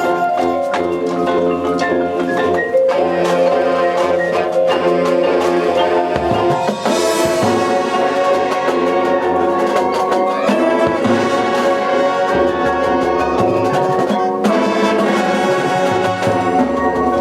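High school marching band playing its field show: sustained brass chords with percussion.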